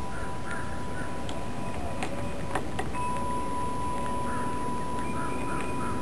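Pine siskins feeding at a plastic seed tray: a few sharp clicks of beaks pecking at the seed, and in the second half a bird calling in short repeated notes, about two or three a second.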